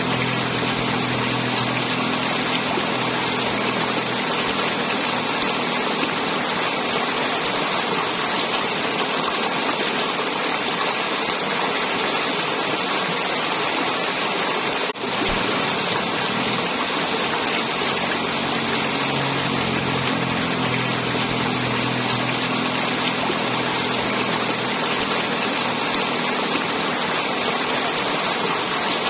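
River water flowing and gurgling steadily, with a brief dip in level about halfway through.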